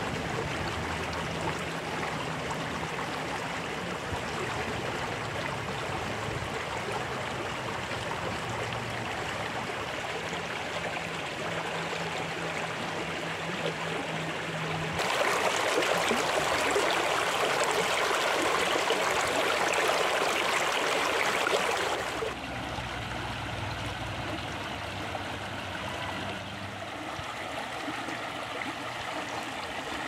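Shallow stream rushing over rocks, a steady water sound that gets louder for about seven seconds midway.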